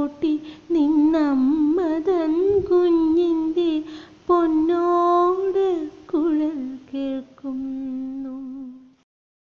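A solo female voice, unaccompanied, singing the slow melody of a Malayalam children's poem in long held, gliding notes. It stops near the end.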